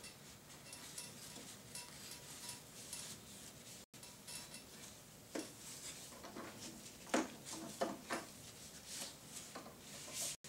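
Gloved hands wiping down the plastic housing and clear door of a Hospira PCA infusion pump: soft rubbing with light plastic clicks and knocks, the loudest about seven seconds in.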